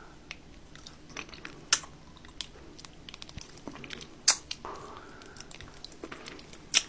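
Close-miked eating mouth sounds: licking gravy off a clear plastic container lid and chewing, with three sharp clicks, one under two seconds in, one a little past halfway and one near the end.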